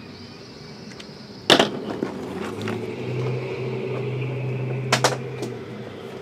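A loud sharp knock about a second and a half in as the stack of shrink-wrapped card boxes is lifted off the table, then a steady low hum for about three seconds, and two quick clacks close together near the end: a marker pen dropping onto the table.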